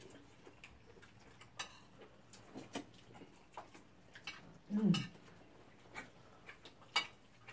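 Quiet, scattered small clicks and taps of a family meal at the table: utensils and plates knocking and eating sounds. A short low voice sound, falling in pitch, comes just before five seconds in and is the loudest thing.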